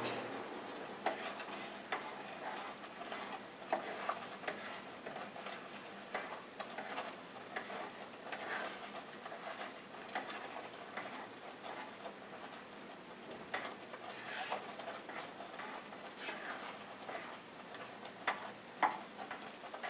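A spatula scraping and knocking against a cooking pot as rice is stirred while its water cooks off, kept moving so the rice doesn't stick. It sounds as irregular soft clicks and scrapes.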